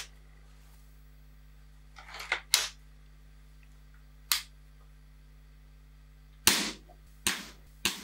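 Weihrauch HW99 air rifle with a .20 barrel firing, a series of sharp shots about one to two seconds apart, each with a short ringing tail.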